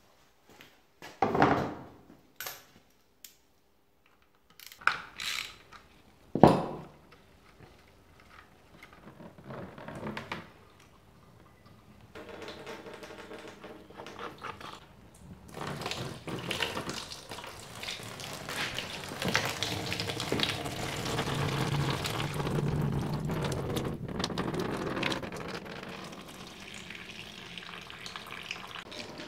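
A few sharp metallic knocks and clanks of tools on the motorcycle, then a steady splashing of fluid draining from the Ducati 916's engine into a drain pan, growing louder from about a third of the way in.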